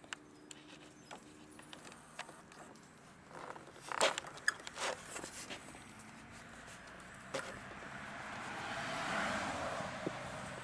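Airedale terrier puppies' paws scuffling and clicking on concrete paving, with a cluster of louder knocks about four seconds in. In the last few seconds a passing car's tyre noise swells to a peak.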